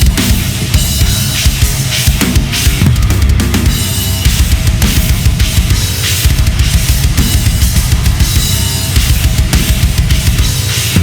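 Gretsch USA Custom drum kit played hard along with a loud rock backing track: driving kick and snare with cymbals over pitched instruments.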